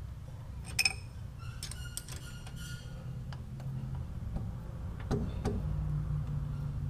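Small metallic clinks, a short run of quick ringing ticks and two light knocks as a lathe's tailstock live centre is brought up to clamp a Delrin pad and brass workpiece against the chuck, over a steady low hum.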